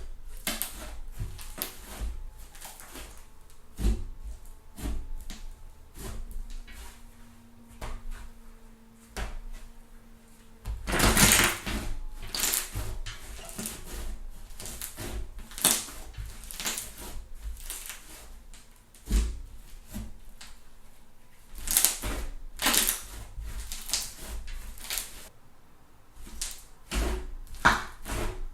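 Thick fluffy slime worked by hand, squished, folded and stretched, giving sticky clicks and crackling pops of trapped air. The loudest run of pops comes about eleven seconds in, with further bursts later.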